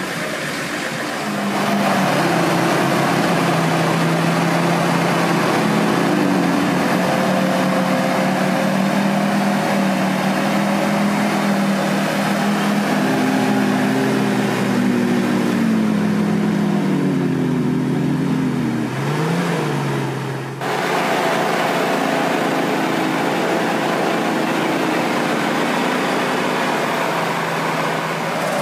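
Off-road vehicle engine running at fairly steady revs, its pitch rising and falling a few times past the middle. About two-thirds of the way in, the sound changes abruptly to another steady engine note.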